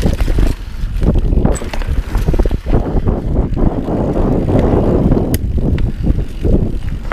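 Yeti SB6c mountain bike rolling fast over dirt and gravel: tyres rumbling on the ground, with sharp clicks and rattles from the bike over bumps, and wind buffeting the microphone.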